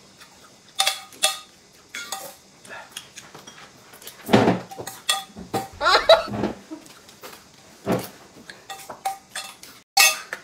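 Metal spoon clinking and scraping against a metal bowl in a run of short, ringing strikes while someone eats, with two louder noises about four and six seconds in.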